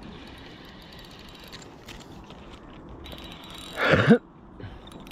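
A spinning reel being cranked, its gears whirring steadily as line is wound in with a fish hooked. There is a brief, louder sound about four seconds in.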